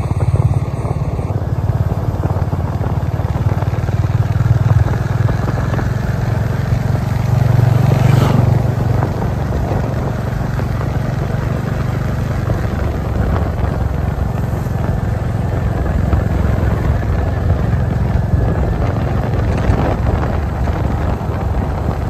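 Motorcycle riding along at road speed, its engine running as a steady low drone under a haze of road and air noise, swelling slightly about eight seconds in.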